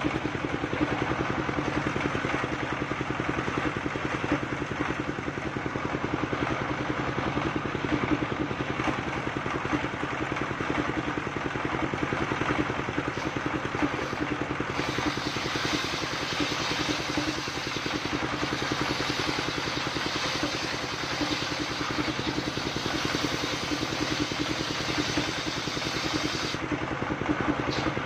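Engine-driven circular saw ripping a coconut-palm trunk into planks: its diesel engine running steadily with a fast, even pulsing, under the hiss of the blade in the wood, which turns sharper from about halfway through until near the end.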